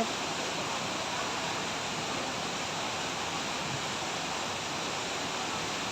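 Steady, even rush of a large indoor waterfall, with no distinct events.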